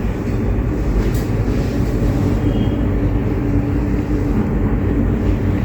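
Steady low rumbling background noise with a faint, constant hum; no distinct event stands out.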